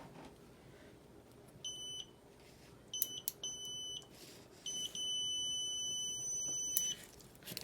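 Digital multimeter's continuity beeper sounding as its probes are held on an air fryer's two-pole power switch and the switch is pressed: five high beeps of uneven length, the last about two seconds long, each showing the switch closing the circuit, with light clicks between them.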